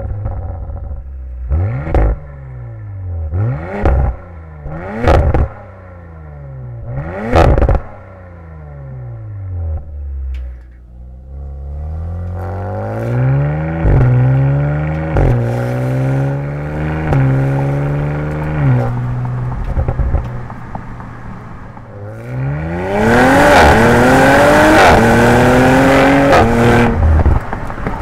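Audi RS4's 2.9-litre twin-turbo V6 heard at the RS sports exhaust tip in RS1 mode. It is revved sharply about five times, each rev rising and falling back with a crack. It then pulls away and accelerates through several upshifts, ending in a louder full-throttle run with quick upshifts.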